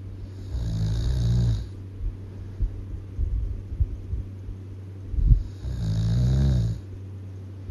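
Really loud snoring: two long, rattling snores about five seconds apart, over a steady low hum with a few small clicks in between.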